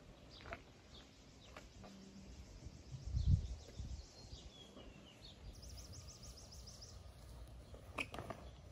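Outdoor ambience with small birds chirping and a fast high trill in the middle, a few light knocks, and a brief low rumble about three seconds in, the loudest moment.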